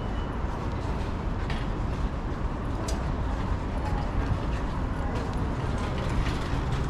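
Downtown city street ambience: a steady low rumble of traffic with scattered light clicks and taps.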